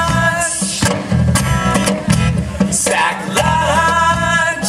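Live band playing: electric bass, acoustic guitar and drum kit, with two sung phrases over the steady beat.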